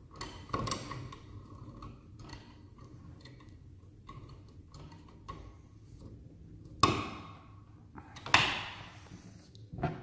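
Hand screwdriver driving a 10-32 ground screw into the tapped hole of a steel electrical box: light clicks and small scrapes of metal on metal. Near the end come two sharp knocks about a second and a half apart, louder than the rest.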